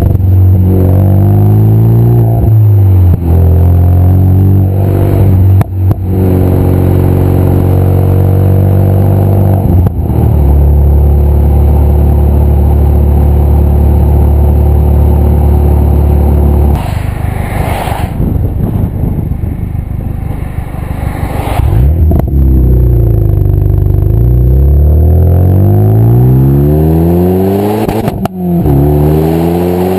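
Renault Megane RS250's turbocharged four-cylinder through a straight-through 3-inch Milltek centre section and small Powerflow rear box, heard from outside the car. The engine note climbs and drops back with each gear change, holds steady for several seconds, falls back off the throttle, then pulls up through two more gears, with short sharp cracks at some of the changes.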